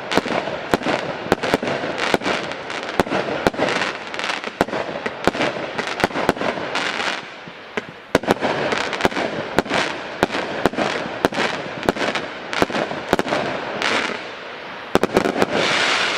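A 100-shot fireworks cake (Express Train) firing in rapid succession: sharp bangs about three a second with a crackling hiss between them. There is a short lull about halfway through, and a dense flurry of shots near the end.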